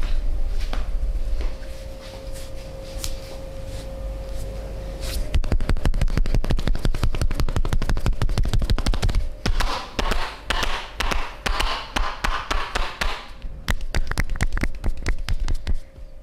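Rapid percussive massage strokes: hands tapping and chopping on the body in a fast, even patter of about ten strikes a second, which turns looser and sparser near the end. Before the strokes start, a steady low hum with a few faint taps.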